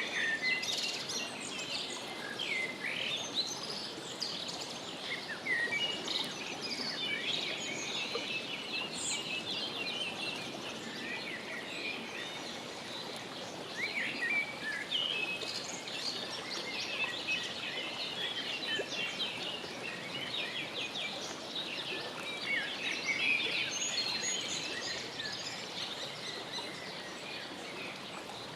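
Birds chirping and peeping without a break: many short, high calls crowding one another over a steady outdoor background hiss.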